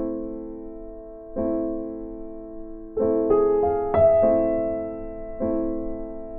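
Background piano music: soft chords struck about every second and a half, each fading away, with a quicker run of notes a little past the middle.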